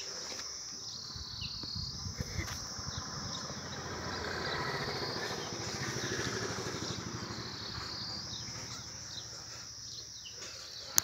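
Insects chirring steadily at a high pitch, with a few short bird chirps over it. A low rumble swells in the middle and fades, and there is a sharp click right at the end.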